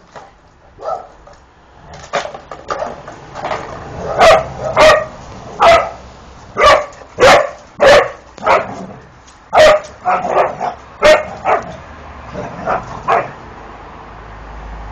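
A dog barking repeatedly in play: a few softer yips at first, then a dozen or so sharp, loud barks about a second apart, easing off near the end.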